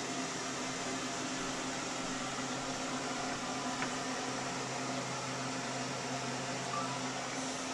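Steady mechanical hum of a running fan or motor, with an airy hiss. The low drone stops shortly before the end.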